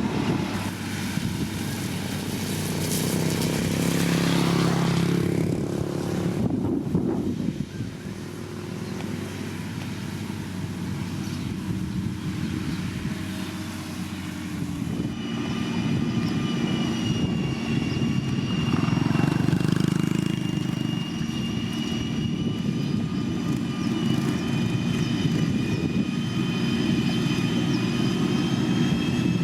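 Diesel engines of heavy road-building machinery running steadily. About halfway through, a steady high-pitched whine joins the engine drone.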